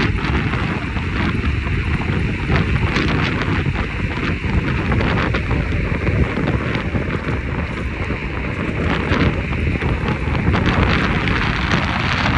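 Wind buffeting the microphone: a loud, continuous rumbling noise with faint crackles through it.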